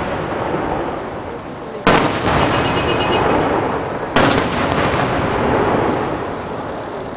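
Aerial firework shells bursting: two sharp booms, about two seconds in and about four seconds in, each followed by a long rolling echo that dies away slowly. A quick run of small crackles follows the first boom.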